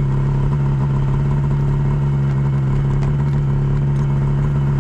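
Snowmobile engine idling steadily, an even drone with no change in speed.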